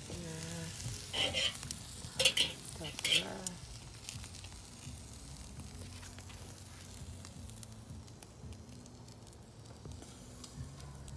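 Baby back pork ribs sizzling as they are laid on a hot charcoal grill grate, with a few loud bursts of sizzle in the first few seconds as the racks go down, then a steady quieter sizzle.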